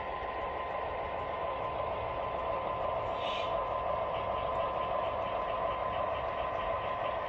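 O scale Atlas GP7 model diesel running by, its LokSound decoder playing EMD diesel engine sound through the locomotive's small speaker. A light, rapid ticking of about five a second joins in about halfway through.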